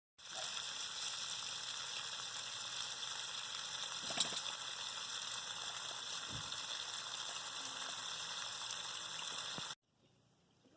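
A steady, even hiss with a faint click about four seconds in, cutting off suddenly near the end.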